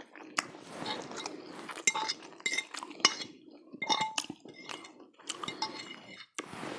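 A fork clinking and scraping against a bowl while spaghetti is twirled up, in quick irregular taps, some with a short ring after them.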